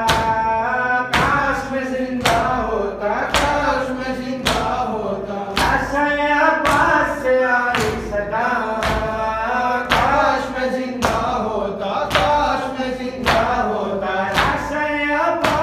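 A man chanting a noha, a Muharram mourning lament, with the mourners' chest-beating (matam) landing as a regular thud about once a second in time with the chant.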